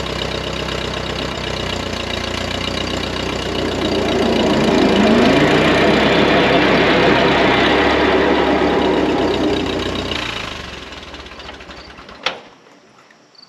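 1948 Ford 8N tractor's four-cylinder flathead engine running with the PTO engaged, driving the finish mower's blades while the three-point hitch lifts the deck. About four seconds in the engine rises in pitch and grows louder, then near the end the sound fades away, with a single click.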